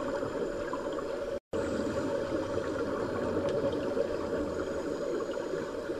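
Muffled underwater noise in a swimming pool, picked up through a camera housing: a steady low rush with fine crackling. It cuts out for an instant about a second and a half in.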